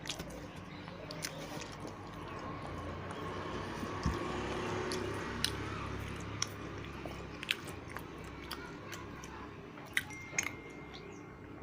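Close-up chewing of a meal of rice and curry, with scattered sharp clicks through the chewing.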